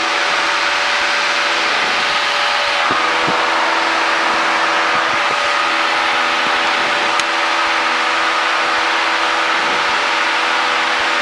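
Cessna 172's piston engine and propeller running steadily in flight, a constant drone with a few steady tones under an even rushing noise.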